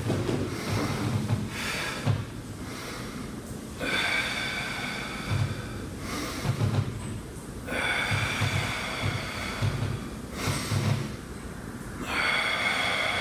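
A man's forceful breathing during a Pilates abdominal exercise: several strong breaths in and out in a slow, uneven rhythm.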